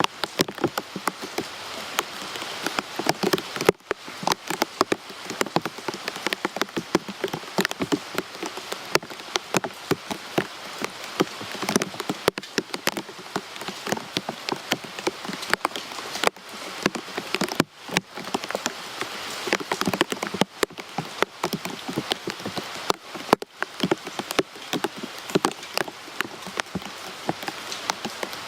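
Rain falling steadily, with dense, irregular taps of close drops striking a hard surface over a continuous hiss.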